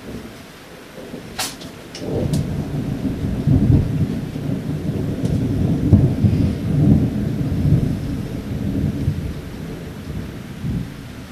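Thunder rumbling: it builds about two seconds in, is loudest through the middle and slowly dies away, over steady rain. A few sharp clicks come just before the rumble starts.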